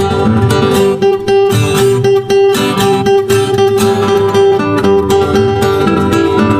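Background music led by plucked acoustic guitar, with a held note through the middle and a steady strummed rhythm.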